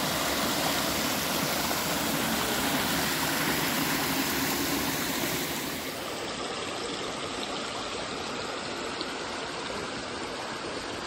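Small waterfall on a mountain stream: a steady rush of falling and splashing water, a little quieter from about halfway through.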